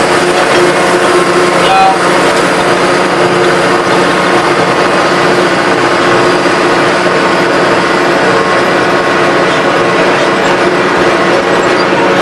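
Turbocharged tractor diesel engine running steadily at a constant speed, loud and close, with a steady mechanical whine over it.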